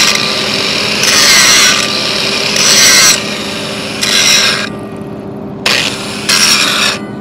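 Angle grinder grinding a 6010 root bead on steel pipe in about six short passes, the disc biting and lifting off over a steady motor hum. It is grinding the root back thin around a blowout hole to prepare it for a re-weld.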